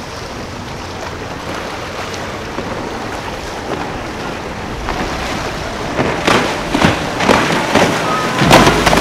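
Outboard-powered boats running fast through choppy water: a steady rush of wind and water that grows louder, with sharp splashes of spray and hull slaps in the last three seconds.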